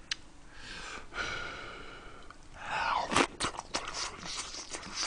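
A man eating close to the microphone, mouth full of kimchi-braised beef short rib: a drawn-out breath for about two seconds, then a cluster of sharp mouth clicks and smacks from chewing about three seconds in.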